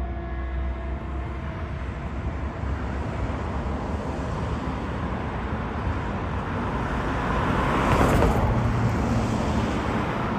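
Road traffic noise, with a faint steady tone dying away in the first second or so and a vehicle passing close, loudest about eight seconds in.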